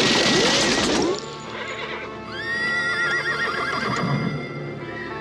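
A loud gunshot blast in the first second, then horses whinnying with wavering pitch over a film score of sustained music.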